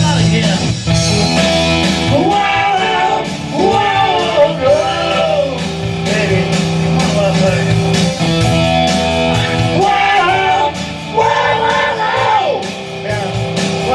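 Glam metal rock music: a bending, wavering lead melody over sustained guitar and bass notes.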